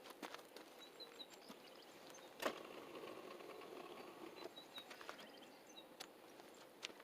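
Faint outdoor ambience with a few small, high bird chirps and scattered sharp clicks, the loudest click about two and a half seconds in.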